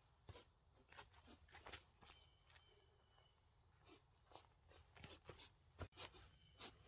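Near silence: faint, scattered footsteps through grass and leaf litter, over a steady high-pitched insect drone.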